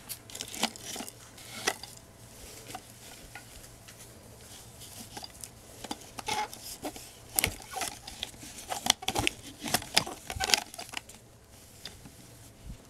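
Gloved hands handling an antique doll: its cloth and lace clothes rustle, with scattered light clicks and knocks as its jointed legs are moved, busier in the second half.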